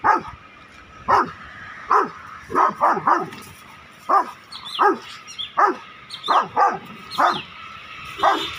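Rottweiler barking aggressively: about a dozen sharp barks at irregular intervals, some single and some in quick pairs.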